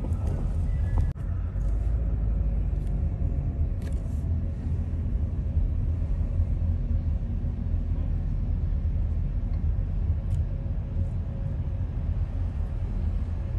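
Low, steady rumble of a car's engine and tyres on the road, heard from inside the moving car. It drops out briefly about a second in.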